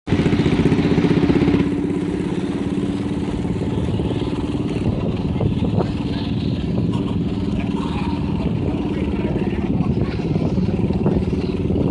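Cub Cadet 70 garden tractor's engine running hard while pulling a weight sled. It is loudest for the first second and a half, then runs on steadily a little lower.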